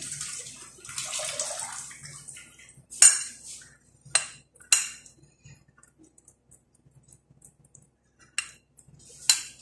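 A metal spoon scrapes across a ceramic plate of mashed fava beans, then strikes the plate in several sharp clinks: three close together in the middle and two more near the end.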